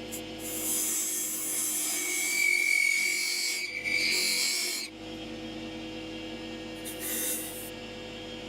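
A wood lathe's motor running steadily while something is held against the spinning wooden blank, giving a long rubbing hiss with a thin squeal in the middle, then a shorter rub near the end: the lines for the box's parts are being marked round the turning wood.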